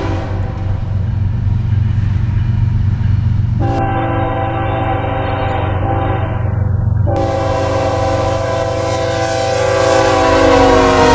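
Diesel freight locomotive's air horn sounding several notes at once over the steady low rumble of the locomotive: one blast ends right at the start, then two long blasts of three to four seconds each follow almost back to back.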